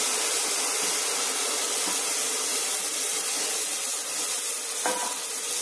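Cluster beans and onion-garlic paste sizzling steadily in hot mustard oil in a pressure cooker, with one brief clink about five seconds in.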